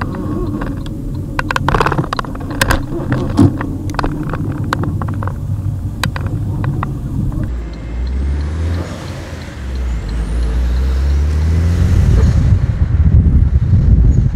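Inside a Saab car driving over a rough road: the cabin rattles and knocks sharply over the bumps, over a low engine and road rumble. About halfway through, the engine note steadies and rises as the car pulls away through the gears.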